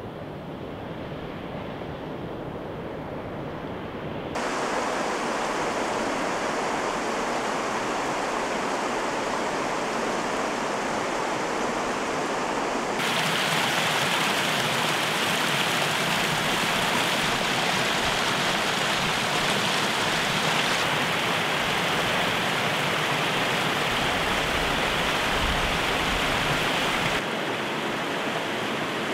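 Rushing water of a river and a small cascade tumbling over boulders: a steady hiss that jumps louder and brighter at sudden changes about four and thirteen seconds in, and drops back a little near the end.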